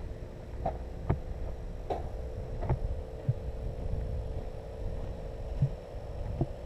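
Scattered dull thumps and clicks, roughly one every second or so, over a steady hum.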